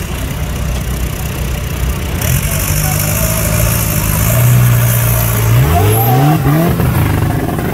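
Diesel engine of an off-road buggy labouring under load on a steep dirt climb, held steady for a few seconds and then revved in several quick rising bursts about six seconds in.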